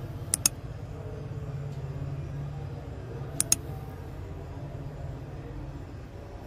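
Two quick double clicks, like a mouse button, about three seconds apart, over a steady low hum.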